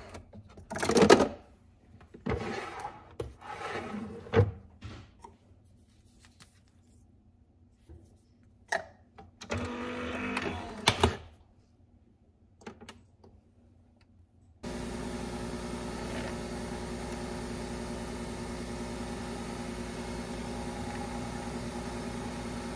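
Capsule coffee machine being loaded, with a series of clicks and knocks as its top is opened and closed. About two-thirds of the way in the machine starts brewing with a sudden, steady mechanical hum as coffee pours into the cup.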